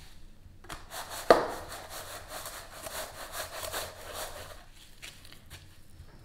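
Twisted dough being rolled and pressed in a metal tray of bread crumbs: a dry rustling and scraping of crumbs with many small crackles, and one sharp knock about a second in. The rustling stops after about four and a half seconds.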